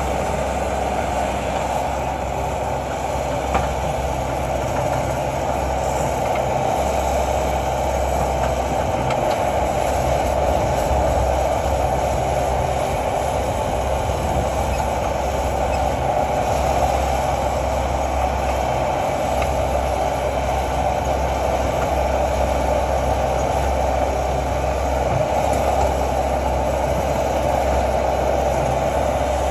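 Bobcat T590 compact track loader working, its diesel engine running steadily under load with a low drone and a strong steady hiss over it, while it pushes and lifts dirt and roots.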